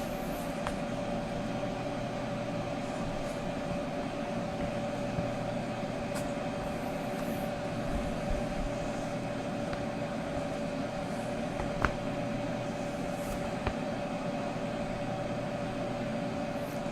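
Weedo M2 desktop 3D printer's cooling fans running with a steady whir and a steady hum tone while the nozzle heats up for filament loading. A few faint clicks.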